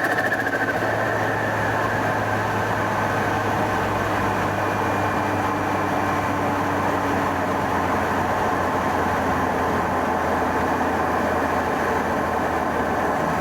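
BMW F30 328i's N20 turbocharged four-cylinder engine running steadily at an even pitch, with no revving or turbo flutter.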